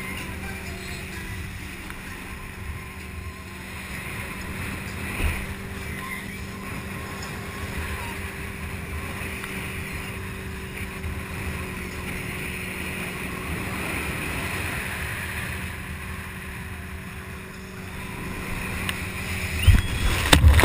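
Motorboat engine running at a steady hum, with water and wind noise. Loud knocks and bumps come near the end.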